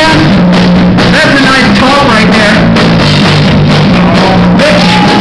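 A rock band playing live: electric guitars through a Marshall amplifier stack, bass and drums, with a singer's voice over them, all recorded very loud.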